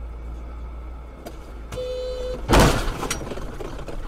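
Steady rumble of a moving car heard from inside the cabin. Near the middle, a car horn sounds for about half a second, then a sudden loud bang follows just after it.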